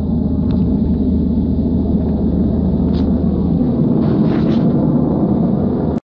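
Vehicle moving over a gravel bar, heard from inside the cab: a steady low rumble of engine and tyres, with a few small clicks and a brief rattle about four seconds in.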